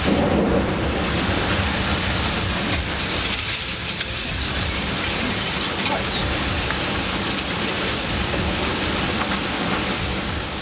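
Heavy rain pouring down in a storm with strong wind, a steady dense hiss with a low rumble beneath it.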